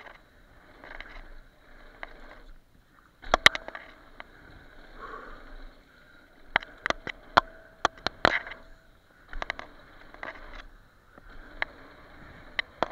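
Mountain bike ridden fast down a dirt trail: a steady rumble of tyres on dirt, broken by many sharp clacks and rattles as the bike hits bumps.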